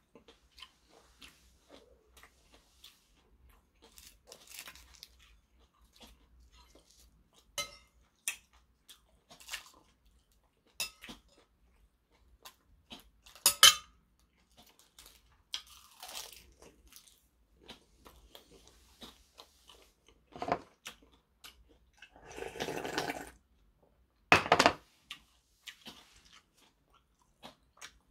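Close-up eating sounds: chewing and crunching of rice and side dishes wrapped in roasted seaweed, with a metal spoon clinking and scraping on a ceramic bowl. Sharp clicks come irregularly, the loudest about halfway through and again near the end.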